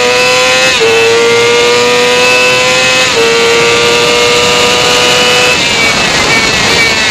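Motorcycle engine accelerating hard down a straight, its pitch climbing and dropping at quick upshifts about a second in and again about three seconds in. About five and a half seconds in the throttle closes, the engine note falls away and wind rush takes over as the bike slows.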